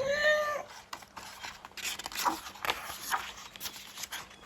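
A short pitched cry that rises and falls, ending about half a second in, then about three seconds of irregular clicks and scratchy scraping noises.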